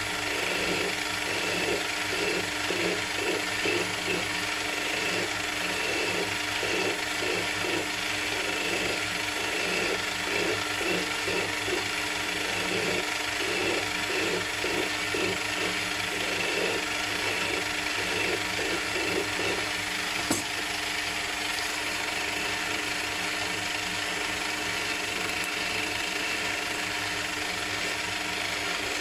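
Small metal lathe running steadily with its gear whine while a flat hand file is stroked against the turning metal workpiece, a couple of rasping strokes a second. About two-thirds of the way through the filing stops after a sharp click, and the lathe keeps running.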